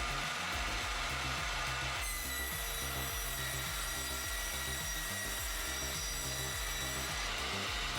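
Power saw cutting through wood, a steady rasping noise with a high whine that turns brighter about two seconds in.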